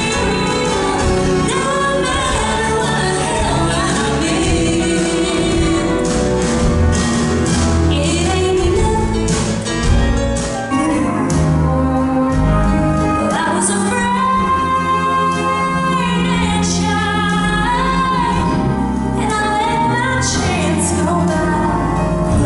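A woman singing with a live country band, accompanied by acoustic guitars, piano and drums; she holds one long note about two-thirds of the way through.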